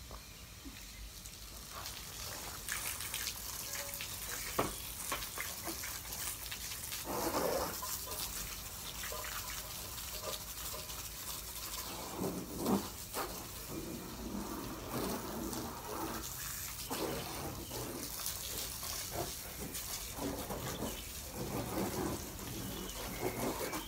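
Water from a garden hose spraying onto a car and splashing, a steady hiss with a few louder bursts.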